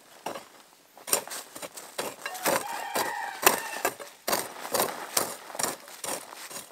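A run of sharp, irregular knocks and snaps, several a second. A short pitched animal call sounds for about a second and a half near the middle.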